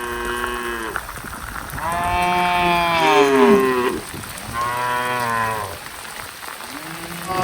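Cattle mooing: about four long calls one after another, the longest in the middle ending in a falling glide, with rain hissing steadily underneath.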